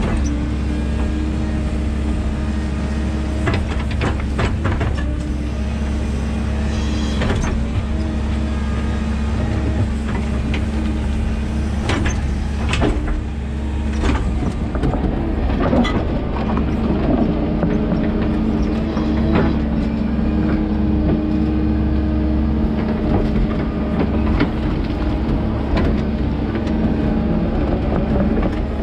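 13-ton excavator running under load: a steady engine drone with a constant whine, broken by knocks and scrapes as the steel bucket digs into soil and brick rubble.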